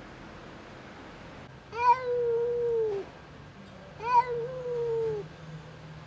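Tortoiseshell cat meowing twice, two long drawn-out calls about two seconds apart. Each starts abruptly with a loud rise, holds steady for about a second, then drops away at the end.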